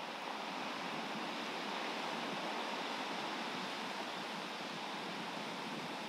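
Ocean surf washing steadily: an even, continuous hiss of breaking waves.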